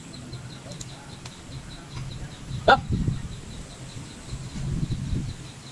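A short animal call about three seconds in, sweeping up and down in pitch. Under it, faint regular high ticking at about four a second and a low hum that swells and fades.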